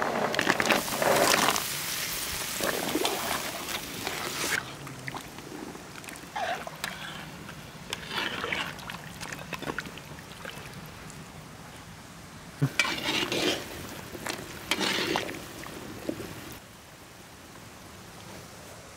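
Chestnuts tipped from a wooden tray into a steaming cauldron of hot water, splashing for the first few seconds. Then a metal ladle stirs them in short bursts, with one sharp knock of metal against the pot.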